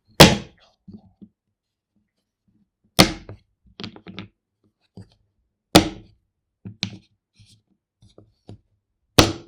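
Four loud, sharp thuds about three seconds apart, each dying away quickly, with softer knocks between them.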